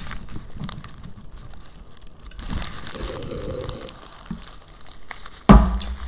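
Paper burger wrappers crinkling and rustling as they are handled, with small scattered clicks. About five and a half seconds in, a single loud knock on the table.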